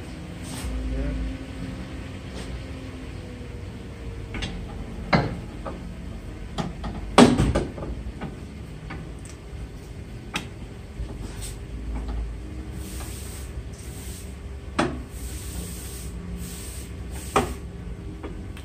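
Several sharp metal clunks and knocks as a new front CV axle is handled and its splined outer end worked into the wheel hub, the loudest a quick double knock about seven seconds in. A faint steady hum runs underneath.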